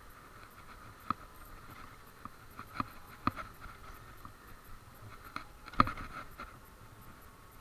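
Ride noise of a small electric stand-up scooter on a city street: a steady faint hum with scattered sharp knocks and rattles, the loudest about six seconds in.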